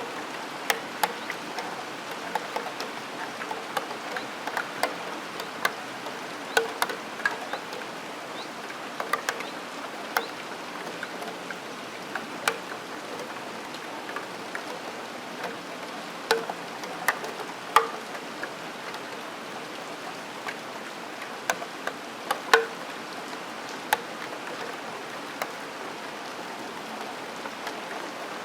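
Rain falling against a window, with a steady hiss of rainfall and single drops striking a steel window sill in sharp, irregular ticks, a few of them much louder than the rest.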